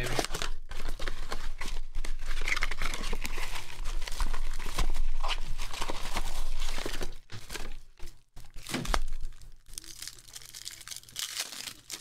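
Clear plastic shrink wrap being torn off a trading-card blaster box and crumpled in the hands: a dense crinkling and tearing for about the first seven seconds, then quieter, scattered rustling and clicks as the box and a foil pack are handled.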